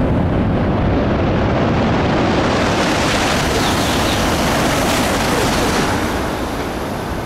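E956 ALFA-X test Shinkansen passing at about 330 km/h. A loud rushing noise builds about two and a half seconds in, holds strongest for a few seconds while the train goes by, then falls away near the end.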